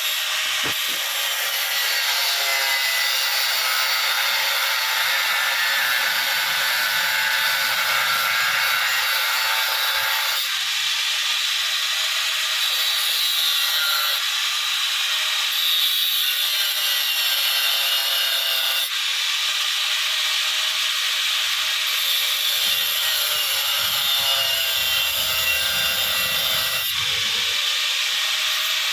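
Steady grinding noise of a power tool at work, changing abruptly a few times.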